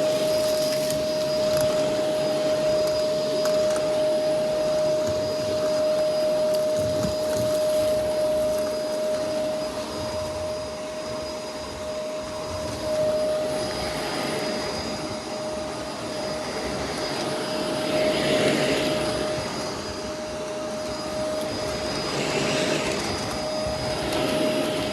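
Shark Lift-Away upright vacuum cleaners running on a rug: a steady motor whine with one constant tone over the rush of air. The suction noise swells and fades with the cleaning strokes, most clearly about two-thirds of the way in and near the end.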